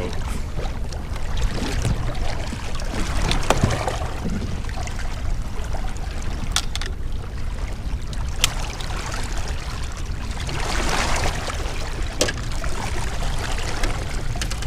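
A boat running at trolling speed: a steady low rumble with water noise that swells briefly about two-thirds of the way through, and a few sharp knocks.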